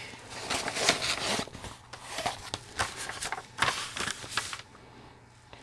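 Handling noise: a diamond-painting canvas and its clear plastic cover rustling and scraping as they are moved about on a light pad, in irregular strokes that die away after about four and a half seconds.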